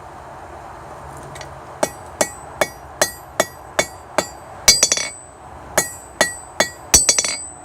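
Hand hammer blows on a white-hot titanium bar in an attempt to forge-weld it: about a dozen quick strikes, roughly two and a half a second, starting about two seconds in, each with a short high ring, with a brief pause midway.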